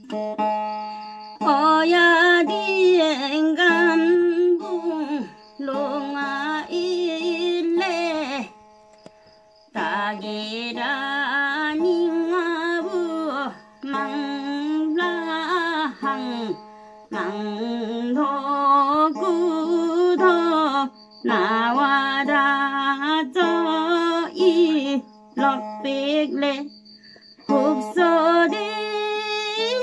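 An older woman singing a Kirat Mangsewa devotional song in Limbu, phrase after phrase with short pauses, over a steady drone from a one-string instrument with a bamboo neck and a small round drum body.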